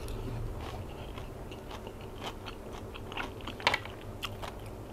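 A woman chewing a mouthful of silkworm-pupa salad with green mango, close to a clip-on microphone: soft, wet chewing with scattered crunchy clicks, the sharpest a little past halfway.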